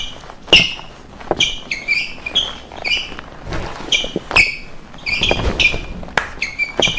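Sneakers squeaking and stamping on a smooth stage floor under a dancer's quick footwork: short high squeaks with sharp thuds, two or three a second in an uneven rhythm.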